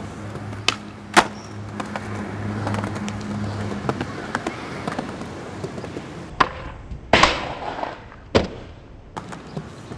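Skateboard on concrete: wheels rolling, with sharp clacks of the tail popping and the board landing, several times. The loudest clacks come about a second in and around seven and eight seconds in.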